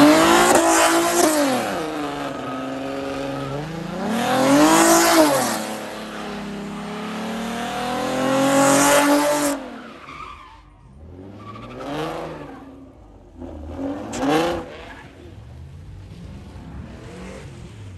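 A vehicle engine revved hard three times, each rev climbing and falling in pitch, with a loud hissing rush over it, then two short throttle blips after a quieter gap.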